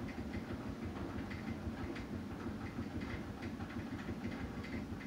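Steady low background hum, with faint soft clicks scattered through it.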